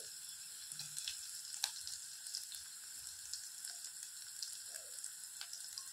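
Chopped garlic and grated ginger sizzling in hot desi ghee in a kadhai: a steady frying hiss with scattered small pops and crackles.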